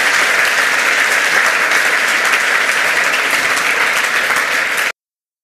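Audience applauding, a dense steady clatter of many hands clapping, which cuts off abruptly near the end.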